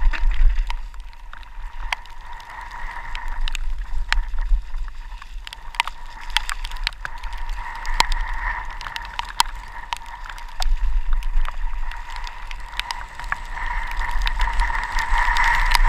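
Mountain bike ridden fast down a rough, wet forest trail: tyres and frame rattling, with many sharp clicks and knocks over roots and stones, and a steady buzz that grows louder near the end. Wind rumbles on the helmet-mounted microphone throughout.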